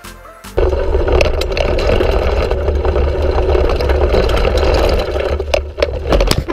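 Wind buffeting the handlebar-mounted camera's microphone and tyres running over a dirt trail on a fast mountain bike descent, a loud steady rumble that starts about half a second in. In the last second come several sharp knocks and clatter as the bike goes down in a crash.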